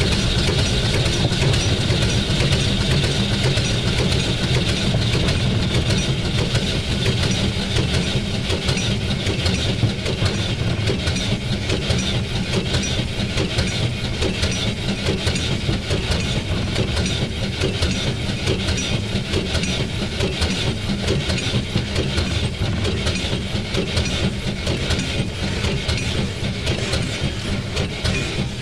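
Steady running noise of the 1910 Swedish SJ class E2 steam locomotive and its wheels on the rails, heard from inside the driver's cab while under way.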